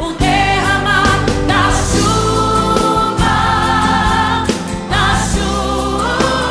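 Gospel song: voices singing long held notes over a band with drums and bass.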